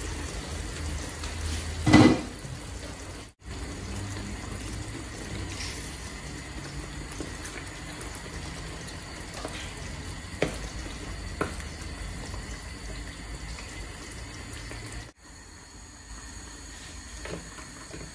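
Sauce simmering and bubbling in a frying pan on a gas hob. About two seconds in, the pan's glass lid clatters loudly as it is taken off. Later a wooden spoon stirs and knocks in the pan, and the sound breaks off briefly twice.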